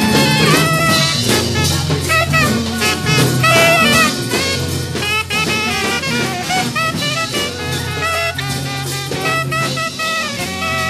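Small jazz ensemble playing: wavering horn lines over bass and drums, heard from a 1974 studio reel-to-reel master by way of a cassette dub.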